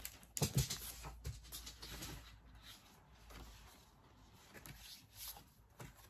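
Paper and card being handled: a few sharp taps and clicks about half a second in, then soft rustling and scraping, with a couple more light taps near the end.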